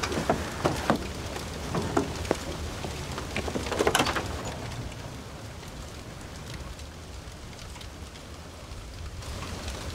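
Steady rain falling over a low, steady rumble, with sharp clicks and knocks in the first few seconds and a louder clatter about four seconds in.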